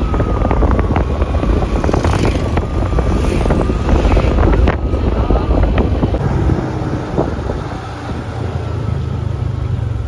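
Wind buffeting the microphone over the low rumble of a running vehicle engine, with a steady low hum in the last few seconds.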